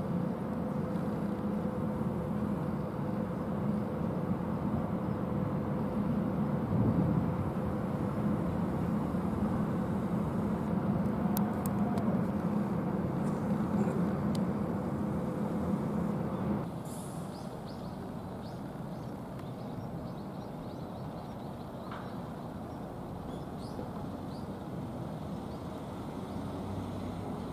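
Steady low rumble of vehicle noise with a faint steady hum, dropping suddenly to a quieter rumble about two-thirds of the way through.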